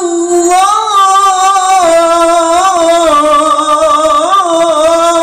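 A male qari's voice reciting the Qur'an in the melodic, drawn-out tilawah style into a handheld microphone. It is one long held phrase that wavers through small ornaments, rising in pitch about a second in.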